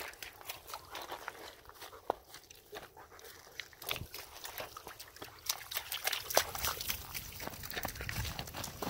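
Footsteps crunching in snow, irregular, with sounds from a dog close by.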